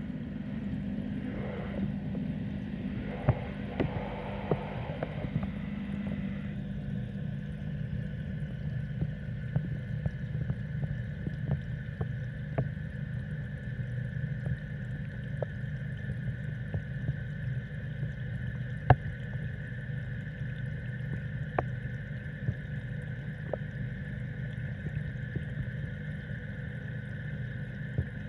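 Steady low hum with running water, as from a fish-rearing tank's pump and water circulation, with scattered faint clicks. A steady high tone joins about six seconds in.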